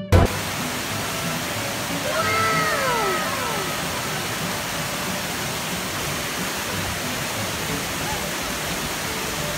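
Waterfall rushing steadily, opening with a brief thump. About two seconds in, a high voice gives one long cry that falls in pitch over the water noise.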